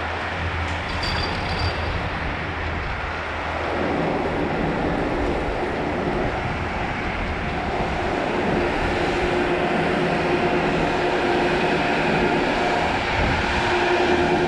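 Snowmaking guns blowing: a steady rushing hiss with a low hum that grows louder, with a steady tone coming in about halfway as the chairlift draws near a fan-type snow gun.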